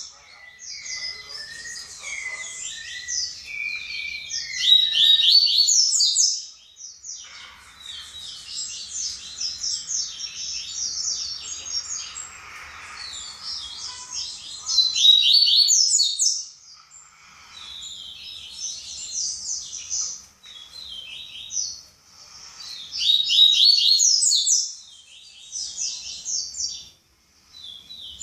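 Papa-capim seedeater singing its rapid, varied 'baderna' song: repeated phrases of fast high chirps and trills, louder bursts coming in three or four spells with short pauses between.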